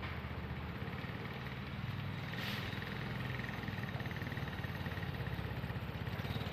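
Steady low engine hum with a fine, even pulsing, and a short hiss about two and a half seconds in.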